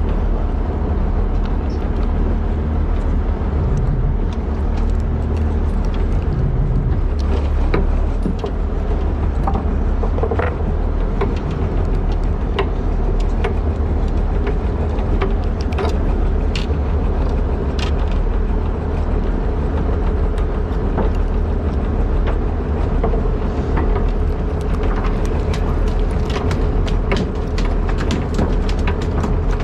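Charter boat's engine running steadily: a continuous deep drone with a steady hum over it, with scattered light clicks and knocks.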